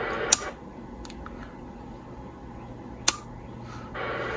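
Two sharp, single clicks about three seconds apart over a steady low hum: the controls or relay of a Stryker SR 955 radio being switched.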